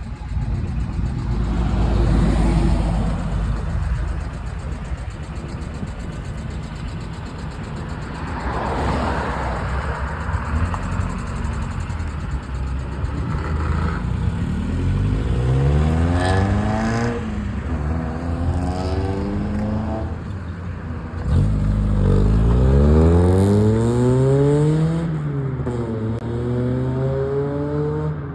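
Car engines accelerating hard, one after another, each rising in pitch and dropping back at gear changes, over a low rumble of engines running.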